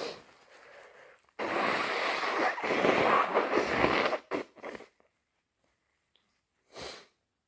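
A person blowing their nose hard for nearly three seconds, followed by two quick sniffs and one more sniff near the end.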